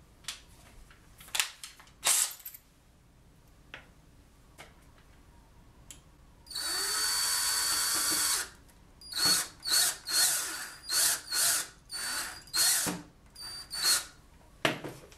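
DeWalt cordless drill/driver running steadily for about two seconds, then pulsed in about ten short bursts, working a small screw into a wooden base to lock armature wire in place. A few sharp knocks come in the first two seconds.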